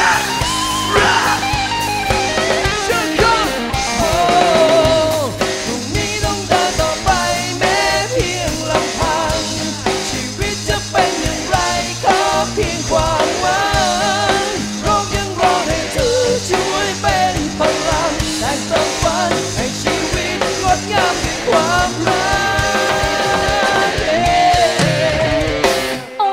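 Live band playing a rock-styled pop song: electric guitar, bass and drums keep a steady beat under a wavering lead melody.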